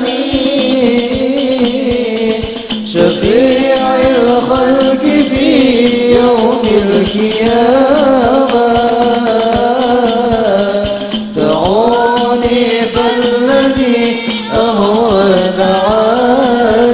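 Sholawat, an Arabic devotional song, sung as one melodic line over steady hand percussion, with brief breaks between phrases about three and eleven seconds in.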